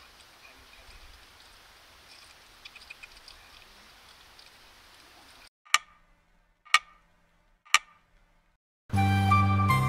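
Faint outdoor night ambience, then three sharp clock-tick sound effects evenly spaced a second apart, followed by background music starting near the end.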